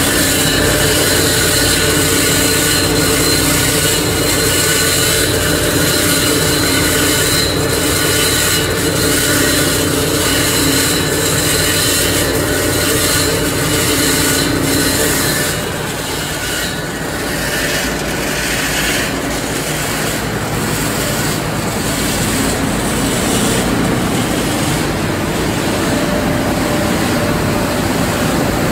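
Plastic film recycling line running: loud, steady industrial machine noise with several constant motor tones over a broad hiss. About halfway through the mix shifts and some of the tones drop out.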